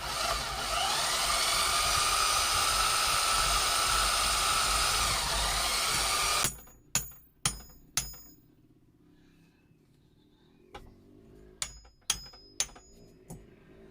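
A power tool's motor spins up and runs steadily for about six seconds, then cuts off. Then come four sharp, ringing metal knocks about half a second apart, followed by a few fainter knocks, while work goes on on a steel railway-track section.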